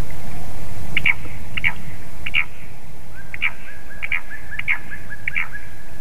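Off-camera birds calling: short, harsh calls from a nutcracker, often given in pairs. From about three seconds in, a black woodpecker joins with a rapid, even-pitched call series of about six or seven notes a second, over a low rumble.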